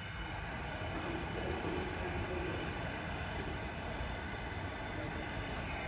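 Steady hiss and rumble of a brazing torch flame working on a pipe joint.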